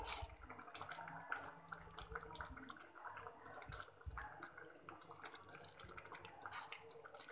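Metal spoon stirring a wet mixture of grated bottle gourd in an aluminium kadhai: soft squelching and slopping with irregular light clicks and scrapes of metal against the pan. The mixture is cooking down and thickening.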